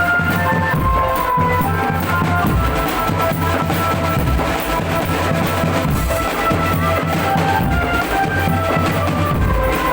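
Drum band playing: bass drums and snare drums keep a steady beat under a melody of held notes.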